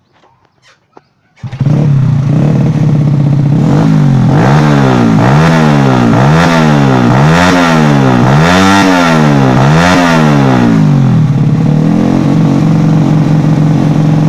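Honda Grand four-stroke single-cylinder motorcycle engine, built to a 115cc daily spec with a BRT S1 camshaft and RRA roller rocker arms, starts about a second and a half in and idles. It is then revved in a run of quick throttle blips, a little over one a second, for about seven seconds before settling back to a steady idle.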